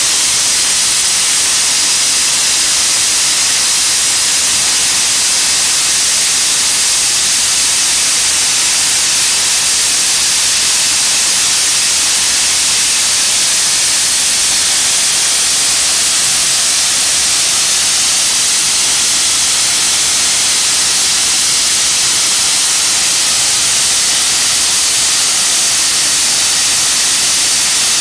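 Standing Metropolitan steam locomotive venting steam with a loud, steady hiss.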